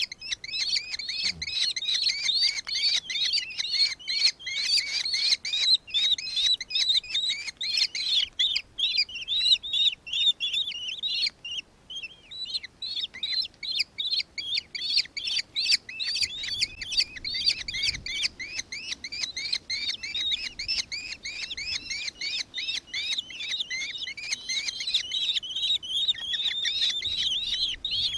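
Nankeen kestrel calling: a long run of rapid, shrill, high chittering notes, several a second, easing briefly about halfway through.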